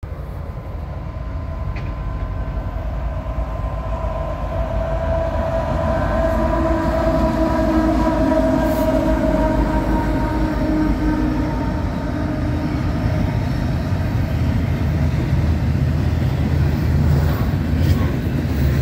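Freight train's diesel locomotives approaching and passing, the rumble growing louder, with a multi-note air horn sounding for several seconds through the middle. Double-stacked container cars then roll past with a low rumble of wheels on rail.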